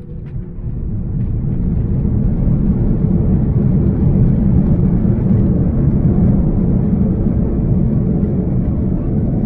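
Airbus A330 landing roll heard from the passenger cabin: a loud low rumble that builds over the first two seconds and then holds steady.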